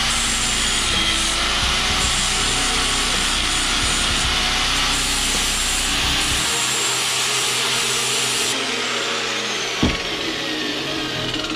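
Angle grinder with a thin cutting disc cutting into steel plate clamped in a vise, a loud steady scream of disc on metal. About eight and a half seconds in it is switched off and winds down with a falling whine, and a single knock follows as it is set down.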